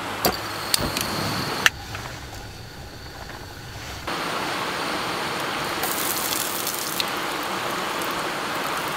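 A few clicks and knocks at a camping gas stove, then, about four seconds in, food goes into hot oil in an iron frying pan and it starts sizzling suddenly, holding a steady sizzle.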